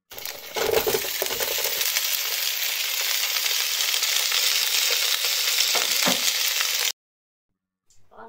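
Food sizzling in a frying pan: a steady, loud hiss that cuts in and out abruptly, lasting about seven seconds, with a couple of faint knocks from the pan.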